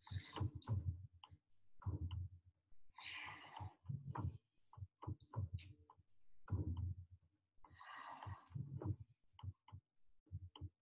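A woman's audible breathing during a slow Pilates spine-flexion exercise. Long breathy exhalations come twice, about five seconds apart, with low short thumps and small clicks in between.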